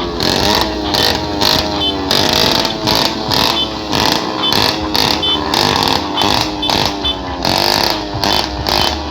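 Loud, heavily distorted music with a wavering melodic line over a steady beat, blasted from a carnival sound system.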